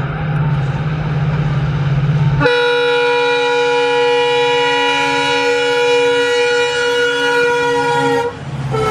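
Diesel locomotive approaching at speed, its engine a steady low drone, then sounding its multi-tone air horn in one long blast for about six seconds from a few seconds in. Near the end the horn breaks off briefly and returns at a slightly lower pitch as the locomotive passes.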